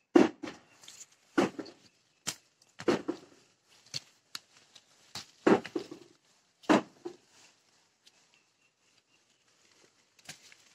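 Leafy citrus branch rustling as oranges are plucked off by hand: about five short rustles and snaps in the first seven seconds, then only faint scattered ticks.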